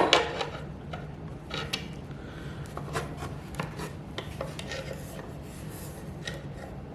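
Small metal clicks and light scraping as steel tie wire and pliers are handled, with one sharp click at the very start.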